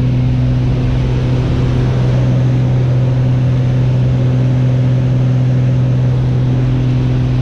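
Propeller engine of a small single-engine high-wing plane droning steadily in flight, heard from inside the cabin with wind rush. The pitch holds level throughout.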